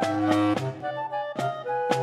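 Upbeat background music: a clarinet-like woodwind melody of short notes over a bass line, with regular drum strokes.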